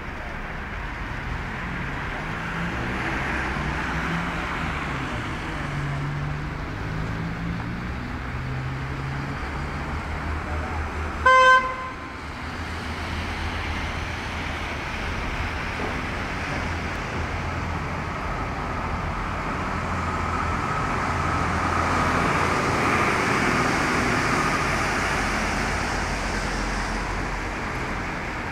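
Road traffic with cars and vans passing and engines running. A little before halfway, a car horn gives one short toot, the loudest sound.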